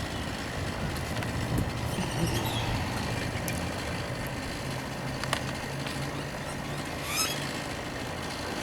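Tree-trimming machinery running at a distance with a steady low hum that fades out near the end, with a sharp click about five seconds in.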